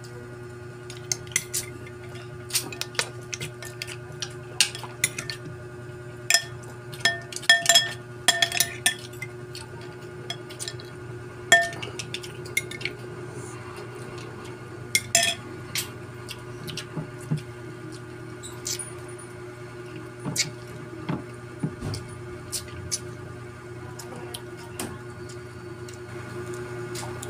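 A spoon and shellfish clinking and tapping on plates during a meal of shrimp and mussels: irregular sharp clinks, bunched together about seven to nine seconds in and again around fifteen seconds, over a steady low hum.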